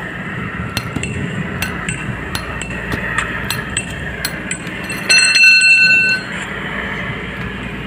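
Steel wire rope strands and a steel splicing spike clinking against each other during hand-splicing of a wire rope eye, a scatter of sharp metallic clinks. About five seconds in, a steel bar strikes the concrete and rings clearly for about a second.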